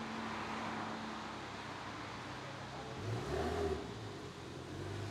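Audi R8 V10 Plus's V10 engine running at low revs as the car pulls away slowly, with a short rise in revs about three seconds in and another near the end.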